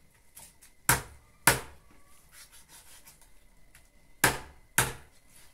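Large knife chopping through a chicken's joints into a wooden board: two pairs of sharp blows, about a second in and again a little past four seconds.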